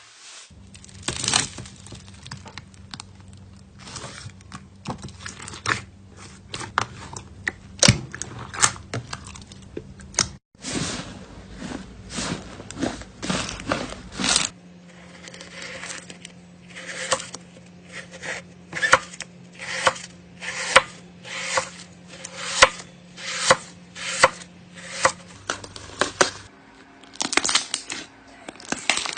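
Slime being squeezed, pressed and poked by hand, giving a run of sharp pops and crackles. The pops come in clusters at first, then settle to about one a second.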